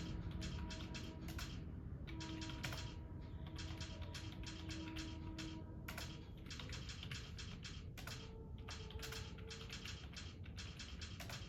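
Computer keyboard being typed on at a moderate pace, key clicks coming in quick runs with brief pauses between words.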